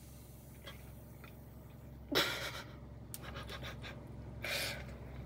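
A man breathing hard: a sudden gasp with a short voiced catch about two seconds in, then another heavy breath near the end.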